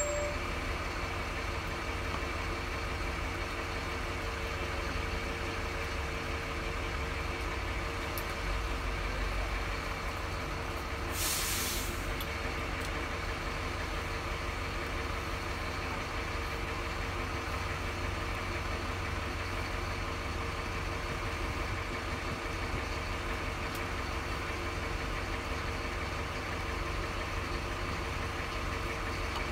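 Steady low mechanical hum with a faint whine running through it, and one short hiss about eleven seconds in.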